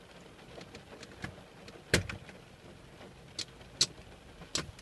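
Plastic centre-console trim panel of a Honda Civic Type R (EP3) being pulled out by hand: sharp clicks and snaps as its retaining clips let go, the loudest about two seconds in and three more near the end, with a few fainter ticks between.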